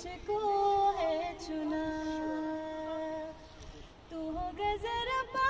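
A woman singing solo, holding long steady notes. She breaks off briefly a little past halfway, then carries on with rising phrases near the end.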